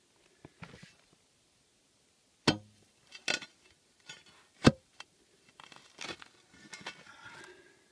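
Pick striking hard, rocky ground in a dug hole: about four sharp chops roughly a second apart, followed by scraping of loose dirt near the end.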